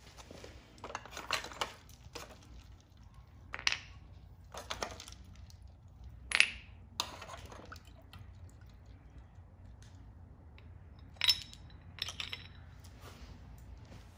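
Cast copper and aluminum ingots clinking and knocking against a metal pot and a concrete floor as they are lifted out of ice water, with the wet slosh of water and ice. About eight separate knocks, the loudest a little after the middle and near the end.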